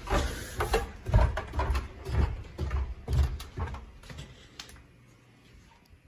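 Footsteps going down a flight of stairs, heavy thumps about two a second, with knocks from the handheld phone, stopping about four and a half seconds in.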